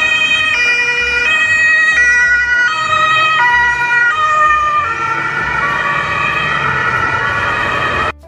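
Ambulance two-tone siren alternating between a high and a low note about every 0.7 seconds. After about four seconds the two notes blur into a wavering, shifting pitch, and it cuts off suddenly near the end.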